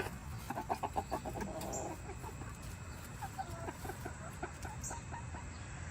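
Backyard chickens clucking: a quick run of short clucks about half a second to a second in, then scattered single clucks.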